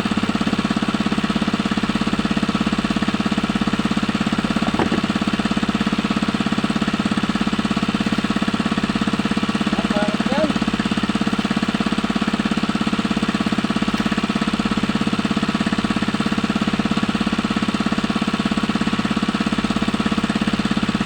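Small engine running steadily, a fast even knocking beat with no change in speed.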